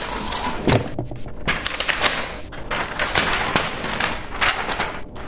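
Sheets of thin wrapping paper rustling and crinkling as they are handled close by, with irregular crackles and a few light knocks.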